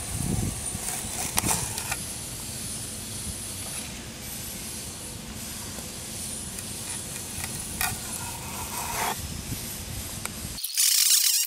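Shop work noise: a steady hiss and low rumble with a faint high whine and a few sharp knocks. After a sudden break near the end comes a short burst of loud, high hiss.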